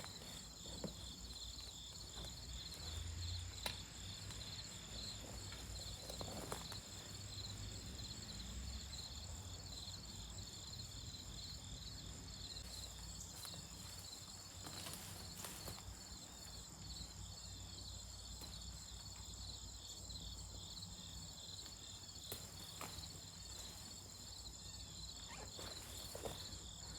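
Insects chirring steadily in a fast, even pulse, with a few faint knocks and scrapes from hand-digging in garden soil.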